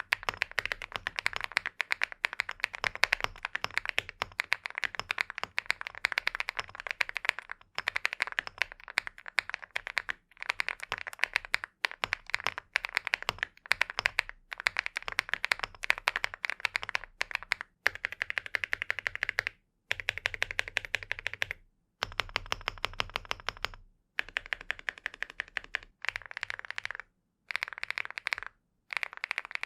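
Fast typing on an INKY 75 aluminium mechanical keyboard: a dense stream of key clacks. In the later part it breaks into shorter runs with brief silent gaps between them.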